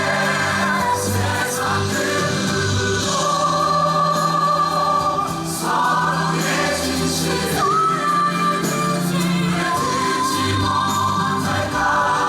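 Stage-musical cast and chorus singing with the orchestra: long held choral notes over a steady bass line.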